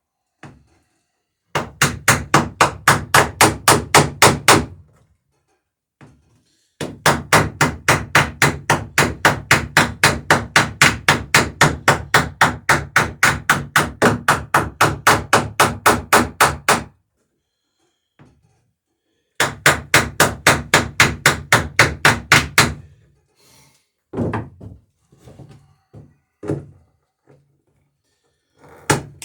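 Hammer peening over the rivets fastening a wooden dory's sheer strake planking: three long runs of quick, even blows at about four a second, with short pauses between, then a few scattered lighter knocks near the end.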